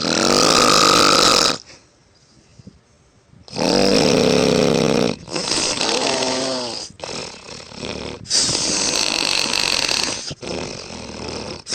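A woman snoring loudly, harsh rasping snores of one to two seconds each. The first snore is followed by a gap of about two seconds, then about five more come nearly back to back, some with a wavering rattle.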